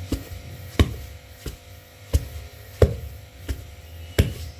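Wooden pestle pounding a mixture of rice flour, grated coconut and palm sugar in a mortar. It lands a dull thud about every two-thirds of a second, seven strokes in all, over a low steady hum.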